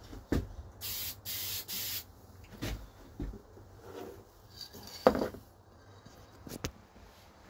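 Aerosol spray paint can hissing in two short bursts about a second in, light passes of a first coat onto a plastic RC body. Handling knocks and clicks follow, the loudest a sharp click about five seconds in.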